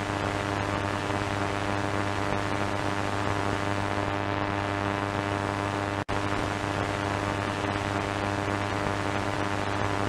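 Steady radio static from an AM radio with no signal: a hiss with a strong low hum and faint steady tones underneath. It cuts out for an instant about six seconds in.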